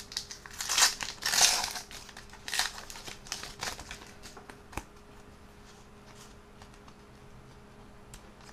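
Foil trading-card sachet crinkling as it is torn open and the cards are pulled out, the loudest crinkling in the first two seconds. A sharp click comes near the middle, and the rest is fainter rustling of cards being handled.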